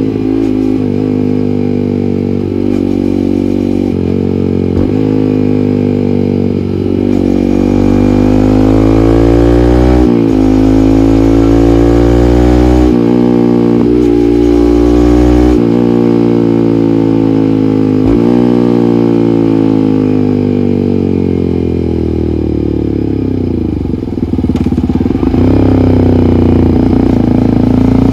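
Yamaha MT-15's single-cylinder engine through an SC Project aftermarket muffler, pulling through the gears: the exhaust note rises with the revs and drops back at each upshift, over and over. Later it falls away in a long slowdown on engine braking, then picks up again to accelerate near the end.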